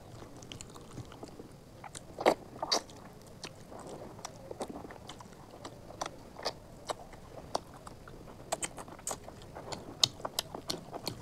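Close-up eating sounds of chicken curry and rice taken by hand: wet chewing and sharp mouth clicks, with a louder pair about two seconds in and a quick run of them near the end.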